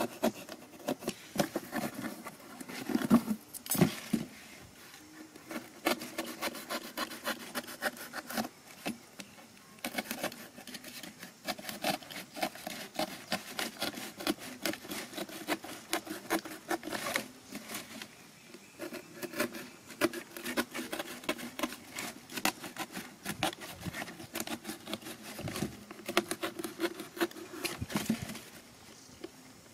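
A utility knife cutting into a corrugated cardboard box: a dense run of short scratchy clicks, broken by a few brief pauses.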